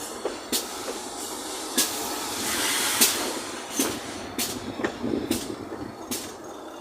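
GWR Large Prairie 2-6-2 tank locomotive 4144 working under steam: slow, uneven exhaust beats from the chimney, with a steam hiss that swells about two to three seconds in.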